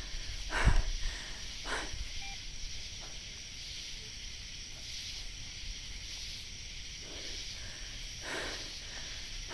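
A steady night-time insect chorus, like crickets, with a thump about a second in and a couple of soft breaths or rustles later on.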